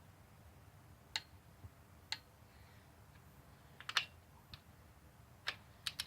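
Hand tools working on an engine: a handful of short, sharp metallic clicks and taps at uneven intervals, with a quick cluster of them near the middle.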